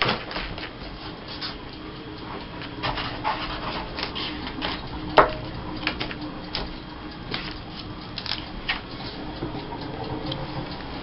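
Paper and sticker sheets being handled and shuffled: irregular rustles and light taps, with one sharp click about five seconds in.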